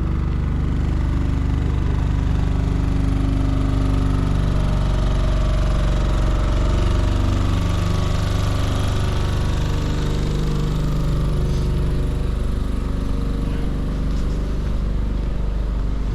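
Engine of the Santa Express ride running steadily near idle, its pitch wavering slightly around the middle.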